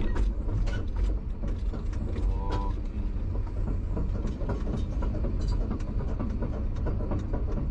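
Case excavator's diesel engine running with its steel tracks clanking as the machine is walked along the lowboy trailer deck.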